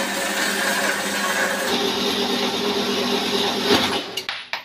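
Electric power tool running steadily while cutting metal tube. The sound starts abruptly, changes a little under two seconds in, and dies away about four seconds in.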